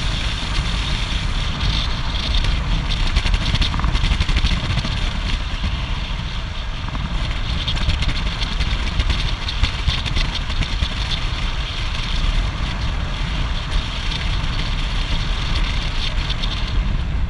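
Steady wind rush buffeting the camera microphone on a road bike descending at speed, a heavy low rumble with a hiss of tyres on asphalt over it.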